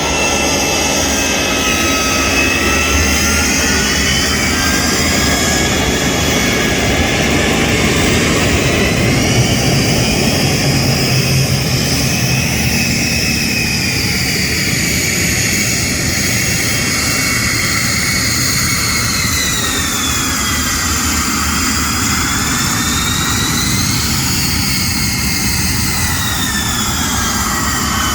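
Turbine-engined airplane running close by: a steady loud roar with high whining tones that slide up and down as the engine's power changes.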